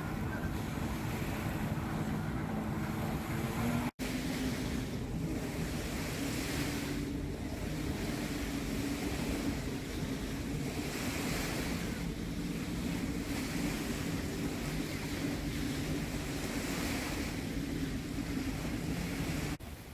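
Water washing in slow swells, with wind buffeting the microphone and a steady low drone underneath. The sound cuts out for an instant about four seconds in.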